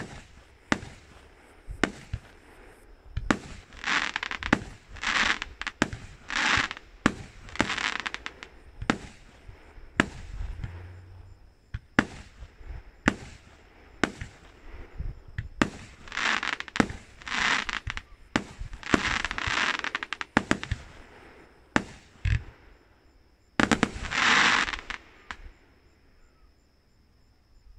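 Fireworks going off: a long run of sharp bangs mixed with noisy bursts about a second each, the loudest and longest burst coming near the end.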